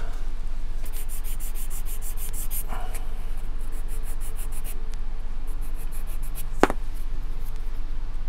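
Small balsa spar being sanded with a hand sanding block: short rapid rubbing strokes, about six a second, in three brief runs, trimming the piece to fit. A single sharp knock about two-thirds of the way in.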